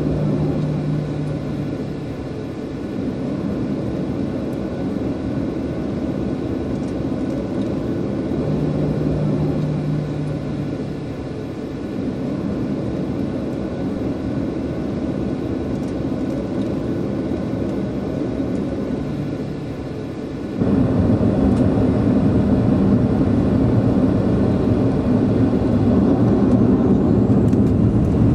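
Boeing 737-800 cabin noise during taxi: the CFM56-7B engines running with a steady low rumble and a low hum that comes and goes. About two-thirds of the way in the sound steps up suddenly and stays louder.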